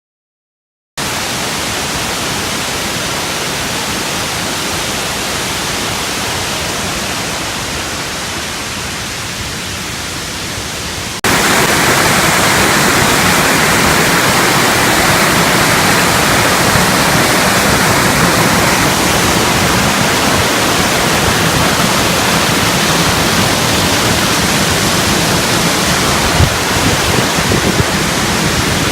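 Waterfall water rushing, a steady dense wash of noise. It starts abruptly about a second in and jumps louder about eleven seconds in, as a second, closer stretch of falling water takes over.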